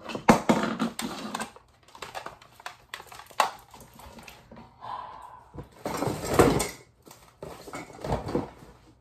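Handling noise of hair being brushed and slicked back: irregular brush-stroke rustles and small knocks of tools being handled, with a louder rustle and bump about six seconds in.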